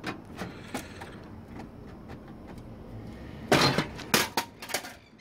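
Metal power supply module of an HP ProCurve 4000M switch sliding out of the chassis and dropping onto a concrete floor: a few light handling clicks, then a loud clatter of sharp knocks about three and a half seconds in.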